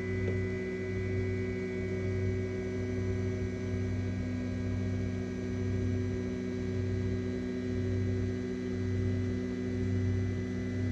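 Flashforge Dreamer NX 3D printer's Z-axis stepper motor lowering the build plate: a steady hum made of several held tones, with a low hum that swells and fades about once a second.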